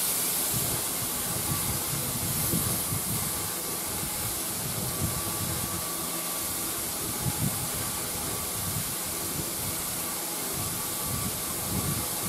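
Lacquer being sprayed onto a wooden radio cabinet: a steady hiss of spray that starts suddenly and runs on without a break.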